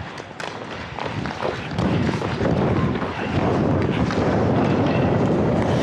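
Wind buffeting a helmet-mounted action camera's microphone as the wearer skates up the ice, turning loud about two seconds in and staying loud. A few sharp clicks come in the first second and a half.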